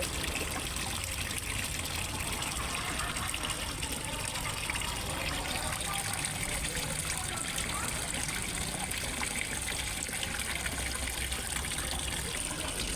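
Water running steadily into a fish pond, a continuous gush with trickling.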